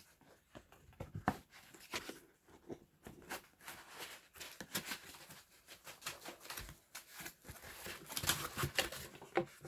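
Box packaging being handled while a remote controller is unpacked: a run of short rustles, scrapes and light clicks, busier toward the end.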